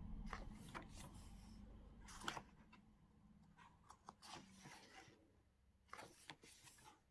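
Faint rustles and soft taps of a paper photo book being handled and its pages turned, a handful of short sounds with the loudest a little over two seconds in.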